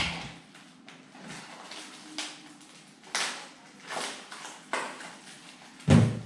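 Cardboard and plastic bags rustling and crinkling as a small box is opened by hand, in a string of short scrapes, with a louder thump shortly before the end.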